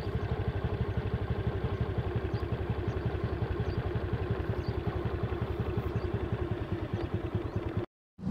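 Vehicle engine idling with a fast, even pulse, cutting off suddenly near the end.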